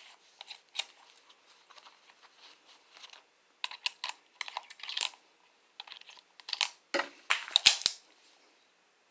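Small metallic clicks and rattles as revolver cartridges are fed from a Speed Strip into a snub-nosed revolver's cylinder, irregular and quick like typing, with a cluster of louder clacks about seven to eight seconds in.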